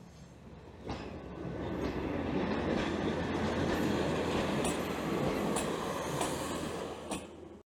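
British Rail Class 141 Pacer diesel railbus passing close by. A steady rumble of engine and wheels builds from about a second in and holds, with several sharp clicks of the wheels over rail joints. The sound cuts off suddenly near the end.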